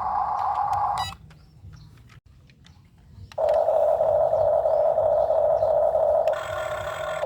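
Heavy vehicle's reversing alarm, a steady buzzing tone. It stops about a second in and starts again after about two seconds.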